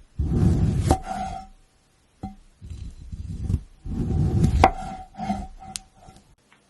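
Crisp, crunchy crackling of grapes in two long stretches, one starting at the beginning and the other about two and a half seconds in, each with sharp snaps and a faint glassy ring.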